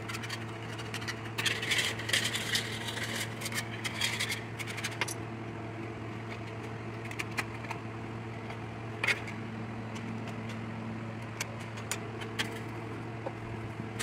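Steel wool scrubbing a copper sheet to clean it bright for brazing. The scratchy rubbing fills the first five seconds, then gives way to scattered light clicks and taps as the sheet is handled, over a steady low hum.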